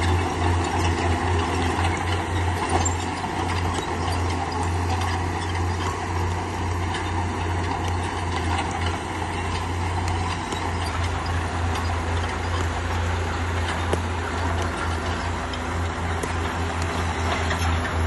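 Bulldozer's diesel engine running steadily under load with a deep low throb, with scattered metallic clicks and knocks over it.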